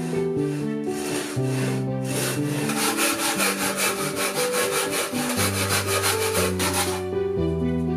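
Hand saw cutting a red cedar board: a few slower strokes, then quick, even back-and-forth strokes at about five a second that stop about seven seconds in. Background piano music plays throughout.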